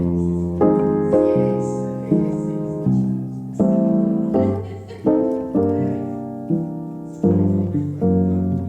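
Instrumental background music: piano chords struck in a steady, unhurried rhythm over a held bass line.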